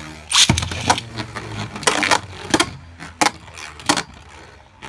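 Two Beyblade Burst QuadDrive spinning tops, Katana Valtryek and Berserk Muramasa, whirring across a plastic stadium and clacking sharply against each other and the stadium walls about six times.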